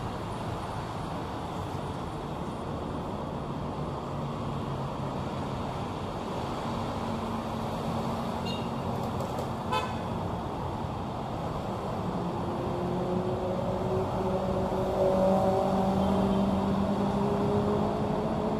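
City street traffic: motor vehicles running past in a steady wash of engine and tyre noise. It grows louder in the second half as vehicles pass close, with held engine tones rising and falling.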